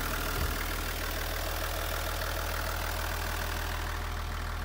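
Toyota Coaster bus's 1HD straight-six diesel engine idling steadily, heard from inside the passenger cabin as a low, even hum. A brief low thump comes about half a second in.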